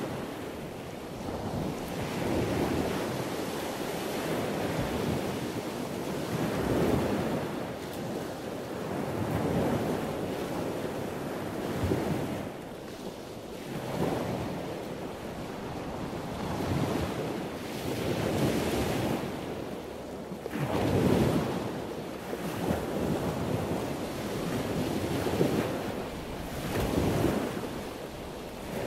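Waves washing, with wind noise on the microphone: a steady rush that swells and eases every two to three seconds.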